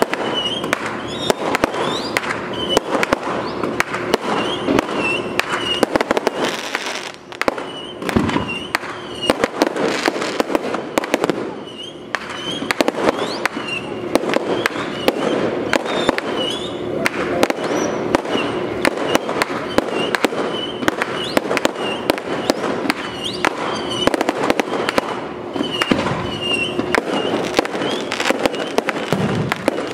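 Aerial fireworks bursting: many bangs and crackles in quick succession, a near-continuous barrage with a brief lull about seven seconds in.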